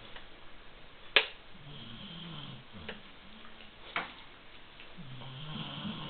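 A sleeping pet snoring: slow, low, drawn-out snoring breaths, two of them in a few seconds. A sharp click about a second in and a fainter one about four seconds in.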